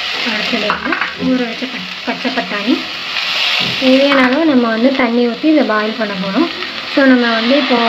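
Chopped vegetables sizzling in hot oil in an aluminium pressure cooker and being stirred. From about four seconds in, a loud wavering pitched sound, like a voice or a melody, runs over the sizzle.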